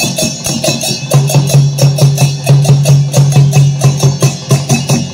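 Folk music accompanying the Odisha animal mask dance: percussion beating a quick, even rhythm, with a loud low note pulsing in time with the beat from about a second in.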